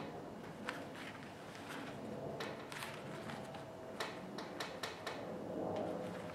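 Hands working wrap material around the edge of a small panel: soft rustling and scuffing, with scattered light clicks and taps.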